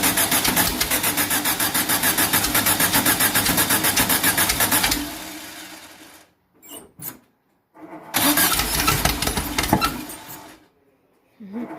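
A flooded 2332cc air-cooled VW flat-four with Empi HPMX 44 carburettors being cranked over in rapid, even pulses without settling into an idle. The first try dies away about five seconds in, a second runs for about two seconds near the end, and a third begins just before the end.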